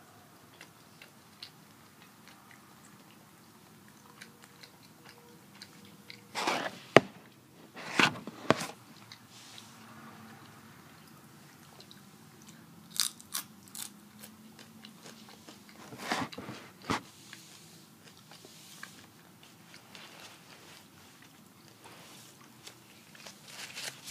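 Nacho chips being bitten and crunched, then chewed, in a few loud bursts of crunching with quieter chewing and small clicks between.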